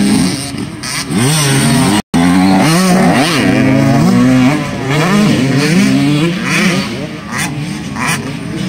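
Dirt bike engines on a motocross track, more than one at once, revving up and dropping back over and over as the riders accelerate and shift gears. The audio cuts out for an instant about two seconds in.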